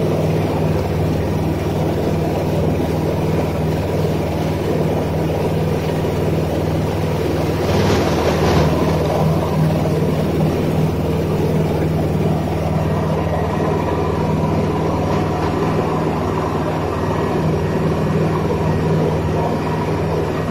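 A boat's engine running steadily under way, with water rushing in the wake and wind on the microphone. There is a brief louder rush about eight seconds in.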